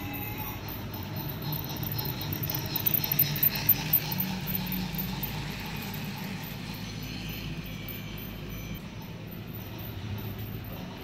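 Toy freight train running along its plastic track, the wagons rattling and clicking steadily, loudest about three to four seconds in.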